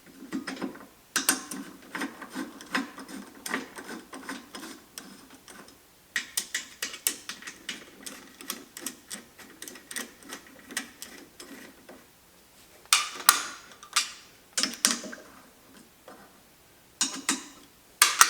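3/8 button head bolts being driven down into the steel vise base's top plate: trains of quick metallic clicks from the tool working the bolts, with a few louder clanks near the end.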